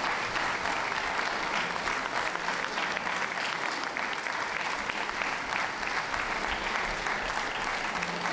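Audience applauding steadily: many hands clapping at an even level.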